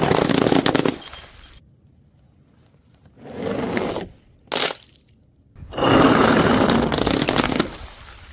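Brittle things breaking and crunching in a series of bursts: a loud one ending about a second in, a quieter one, a short sharp crack, then another long, loud crunch near the end.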